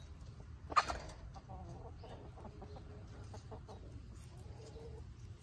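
Domestic hens clucking softly, with one short, loud call about a second in.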